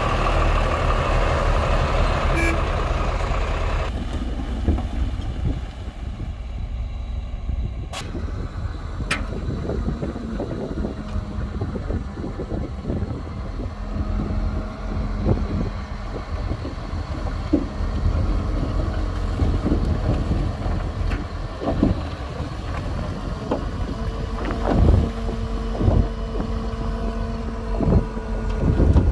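Heavy diesel earthmoving machinery running under load, with scattered knocks and clanks and a few louder thumps near the end.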